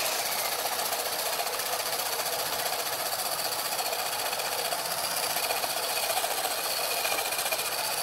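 Wood lathe running with a large wooden blank spinning as sandpaper is pressed against it: a steady sanding hiss over a constant motor whine.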